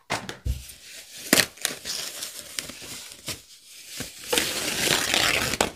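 Subwoofer packaging being handled: crinkling and rustling with scattered clicks and knocks, then a longer, louder rustle over the last second and a half.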